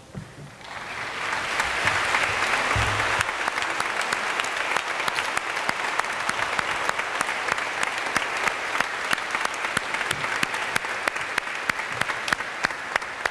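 A large congregation applauding: the clapping swells up about half a second in, then goes on steadily, with sharp single claps from close by standing out over the mass of the crowd.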